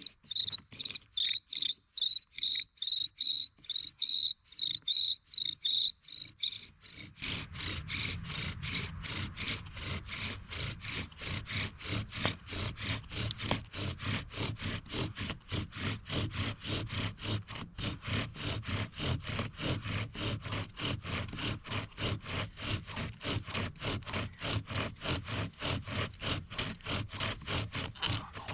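Bow drill in use: a wooden spindle spun back and forth by a bow against a wooden hearth board, building an ember. It squeaks with a high whistle on each stroke for the first several seconds, then the strokes become faster and turn into a steady rasping grind.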